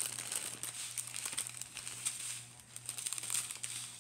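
Small plastic bags of round diamond-painting drills crinkling as they are handled, with a steady low hum underneath.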